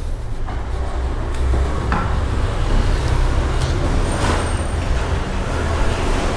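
Steady road traffic noise from the street: a continuous low rumble of passing vehicles.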